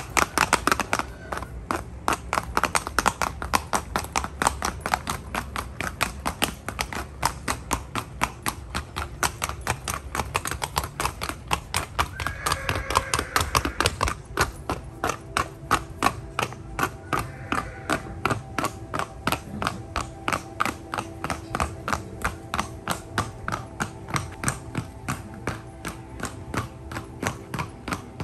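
Colombian criollo horse's hooves striking concrete in a rapid, even gait, a long unbroken run of sharp hoofbeats.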